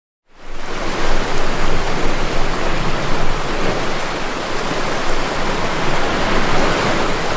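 Steady rush of ocean surf washing over shoreline rocks, loud and unbroken, cutting in suddenly just after the start.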